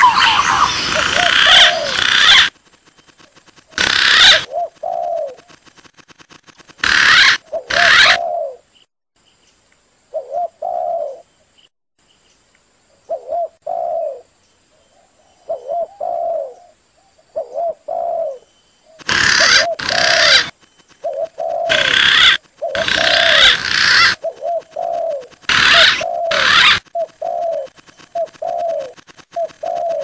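Spotted dove cooing over and over in short low phrases about a second apart, answered by louder, higher green pigeon calls in short clusters. In the middle there is a stretch of dove coos alone.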